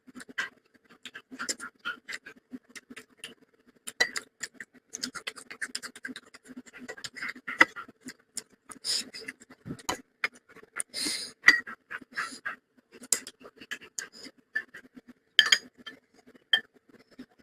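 Close-miked mukbang eating sounds: wet chewing and lip smacks with irregular sharp clicks and short crunchy bursts, about one or two a second.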